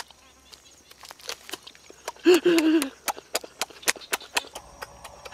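Close-up eating sounds: irregular wet lip smacks and chewing clicks as a person bites and chews roast duck meat off the bone. A short vocal sound comes a little past halfway.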